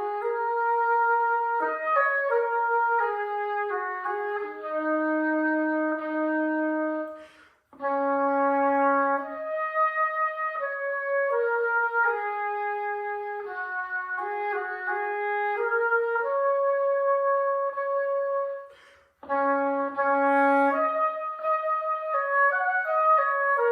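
Solo oboe playing a melodic line of single sustained and moving notes, with two short breaks for breath about 8 and 19 seconds in.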